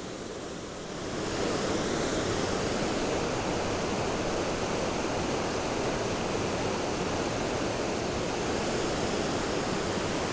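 Rushing water of a rocky stream and waterfall, a steady rush that gets louder about a second in.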